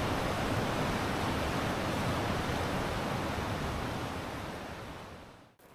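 Whitewater rapids of a river rushing in a steady roar, which fades out near the end.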